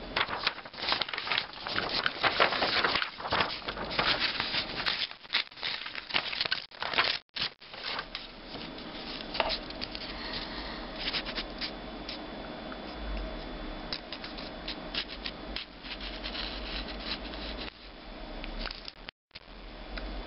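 Close handling noise of a smartphone being cleaned: fingers and a piece of paper scraping and rubbing along the edge of the screen, with many quick scrapes and clicks at first, then softer, steadier rubbing.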